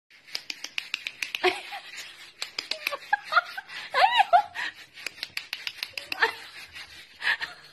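A kitten's claws clicking in quick irregular taps on a hard floor as it walks, with a few short rising-and-falling meows about four seconds in.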